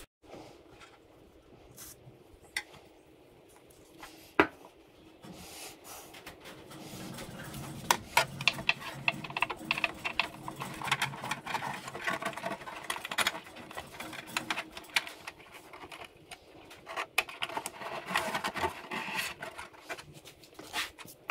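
Hands handling an RC model boat hull and its small steering parts: a sharp knock about four seconds in, then a long stretch of rubbing and scraping with many light clicks as the pushrod is worked through the hull.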